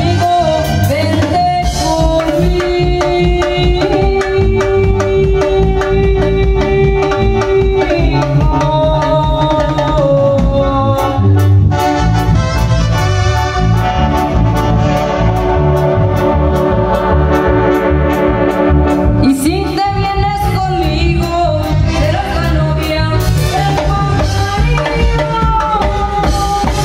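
Live Tierra Caliente band music: electronic keyboards carry sustained melody lines over a drum kit keeping a steady beat.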